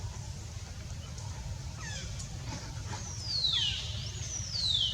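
Newborn monkey crying: high-pitched calls that each slide down in pitch, a few short ones, then two longer, louder cries in the second half.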